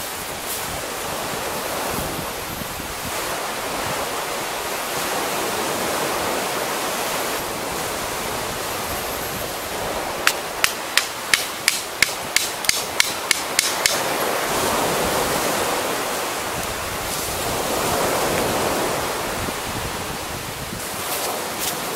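A wooden tent stake being hammered into the ground: about a dozen sharp knocks in a quick run of three to four a second, a little under halfway through. A steady rushing background noise runs underneath.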